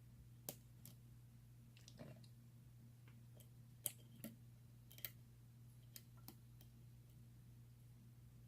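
Faint, irregular clicks of a lock pick working the pins of a pin-tumbler challenge lock under a tension wrench, about a dozen over the first six or seven seconds, over a low steady hum.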